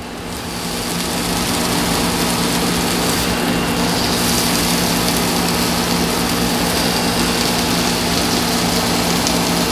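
Sliced onions sizzling in a hot stainless-steel wok while a silicone spatula stirs them, over a steady low hum. The sound swells over the first second or two, then holds steady.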